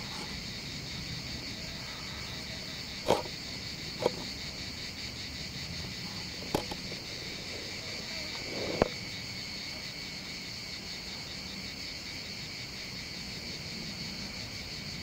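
A steady, high, finely pulsing chirring of insects in the background, with four short, sharp clicks in the first nine seconds.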